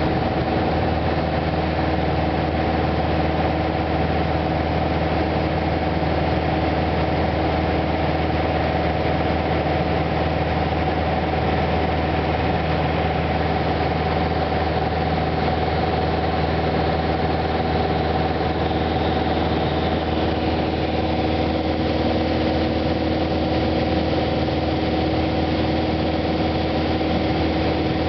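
Steady drone of a Cessna Cardinal's piston engine and propeller in flight, heard from inside the cabin.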